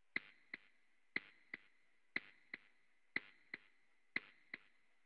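A clock ticking: a sharp tick followed by a softer tock, the pair repeating evenly once a second, five times.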